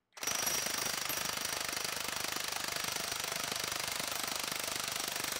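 Milwaukee M18 FUEL 2868 1-inch D-handle cordless impact wrench hammering steadily in reverse, breaking loose a nut tightened to about 1,100 foot-pounds on a bolt-tension tester. It starts a moment in and runs without a pause.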